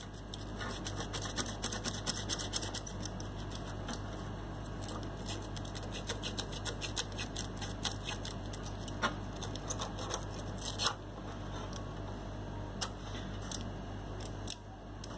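Light scratching and quick clicks of folded paper being rubbed between a relay's contact points to clean them, busiest in the first few seconds and then scattered clicks. The contacts are pitted and dirty, the cause of the stabilizer's restart problem.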